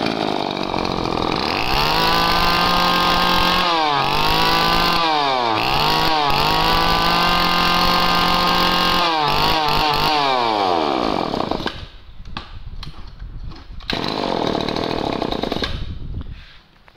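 Mitsubishi TL20 two-stroke brushcutter engine head on a test run: held at high revs, throttled off and back up twice, then dropped to an uneven idle about twelve seconds in and shut off near the end.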